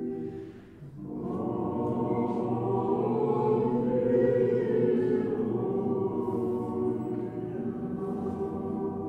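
Choral music: a choir chanting in slow, sustained chords. The sound dips briefly, then a new phrase begins about a second in.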